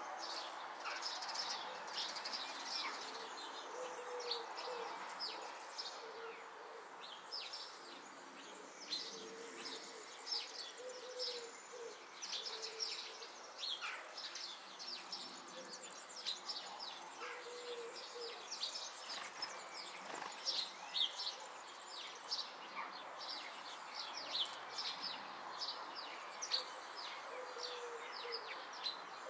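Small songbirds chirping and twittering: many short, high calls scattered throughout, some in quick runs, over a steady background hiss.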